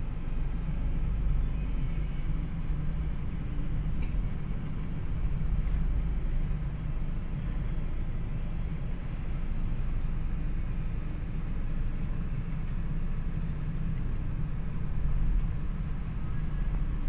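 Steady low rumble of a slow-moving vehicle, its engine and road noise running evenly.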